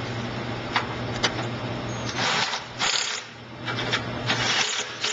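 Cordless drill driving clamp bolts on a texture-sprayer pump, in several short bursts in the second half, over a steady low mechanical hum with a few clicks.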